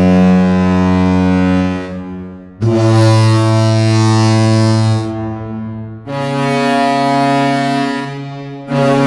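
Hockey arena goal horn, a deep ship-style air horn, sounding a goal in long blasts of about two seconds each with short breaks between them; a fourth blast starts near the end.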